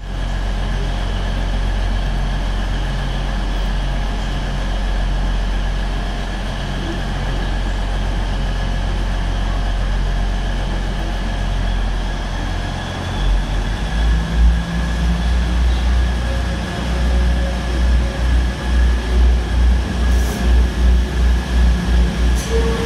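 Class 180 Adelante diesel multiple unit's Cummins diesel engines running steadily at idle, then powering up about thirteen seconds in to a louder, pulsing low throb as the train pulls away under load.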